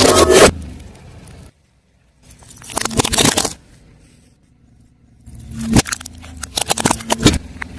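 A car tyre rolling over and crushing crunchy objects: bursts of crackling and sharp cracks over the low sound of the car, three times, the last and longest one a run of rapid cracks.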